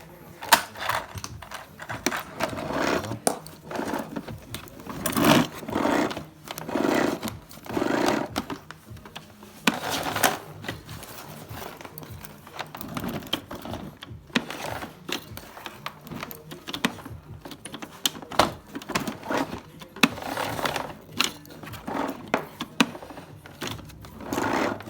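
Irregular clicks, knocks and rustling of plastic parts of a vacuum cleaner being handled, with no motor running.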